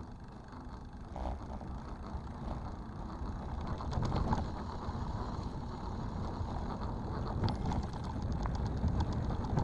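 Mountain bike rolling along a dirt trail: a low, rough rumble from tyres on the ground and air past the moving camera, growing louder as the ride goes on, with scattered light clicks and rattles from the bike over bumps, more of them in the second half.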